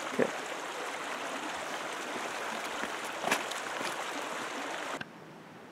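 Steady rushing of a mountain stream, with two brief knocks. About five seconds in it cuts abruptly to a fainter hiss.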